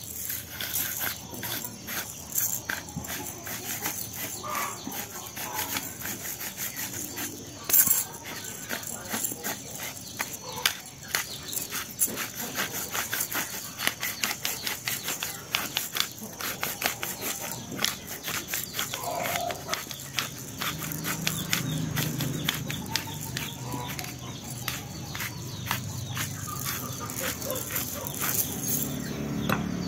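Ground pepper being shaken from its container into the marinade: a steady rapid rattling of many small clicks, with one louder knock about eight seconds in.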